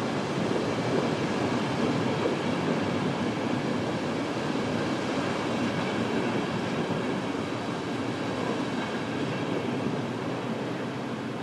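A train running past, a steady noise of wheels on rails that slowly gets quieter.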